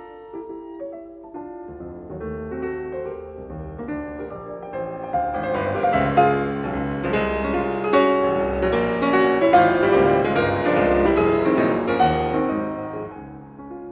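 Piano music: a flowing run of notes that swells to a fuller, louder passage in the middle and thins out again near the end.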